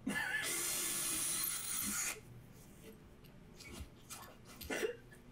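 Cordless drill boring a hole through a plywood sheet: a loud, even grinding noise for about two seconds that then stops, followed by a few faint knocks.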